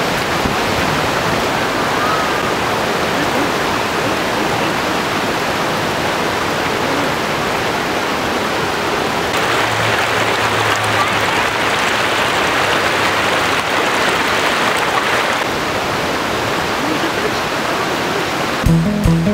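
Shallow, rocky mountain creek rushing over stones below a small waterfall: a steady rush of water. For several seconds in the middle the rush sounds closer and brighter. Music comes in just before the end.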